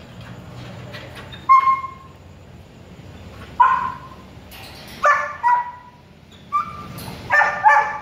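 Caged puppies giving about seven short, high-pitched yelps and barks, a few spread out early and several in quick succession near the end.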